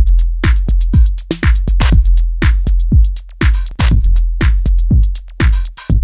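Drum machine beat heard dry, with the tube distortion unit bypassed: kick drums with long low tails, snare hits and fast hi-hat ticks in a steady repeating pattern.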